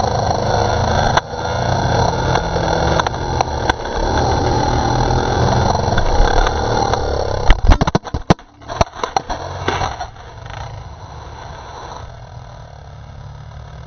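Suzuki motocross bike's engine running hard under throttle, heard close up with wind rush. About seven and a half seconds in comes a burst of heavy knocks and clattering as the bike crashes into the dirt, then a quieter engine sound carries on.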